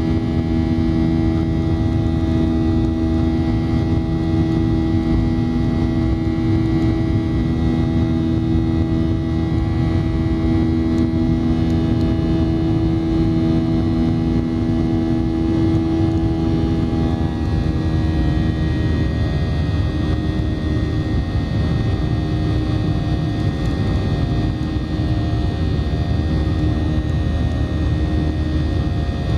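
Boeing 737-800's CFM56 turbofan engines running at high thrust, heard from inside the cabin: a loud, steady rumble with a humming whine at several pitches that shifts and breaks up about seventeen seconds in.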